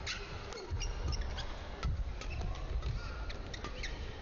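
Badminton doubles rally: sharp racket hits on the shuttlecock in quick succession, mixed with short squeaks of players' shoes on the court, over a steady low background of the arena crowd.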